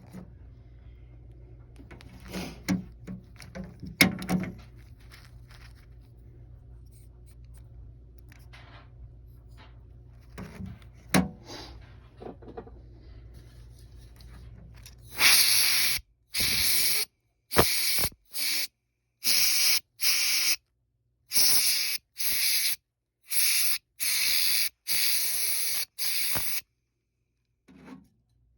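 Pressurised spray hissing in a dozen or so short blasts, each half a second to a second long, while dirt is cleaned out of a laser cutter. Before the blasts, parts knock and click a few times over a low hum.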